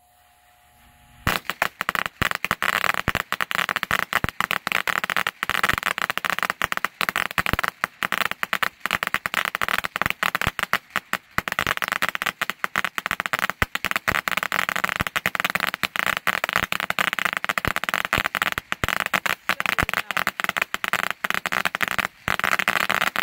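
A 1000-count roll of firecrackers going off: about a second in, a dense string of rapid bangs starts and keeps going without a break, dipping briefly twice.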